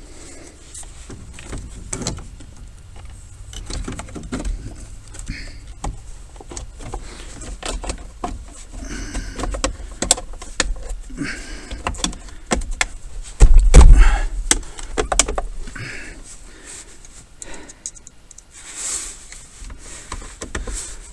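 Plastic lower steering-column shroud of a 1994 Ford F250 being handled and fitted: irregular clicks, knocks and rustling, with one loud thump about fourteen seconds in.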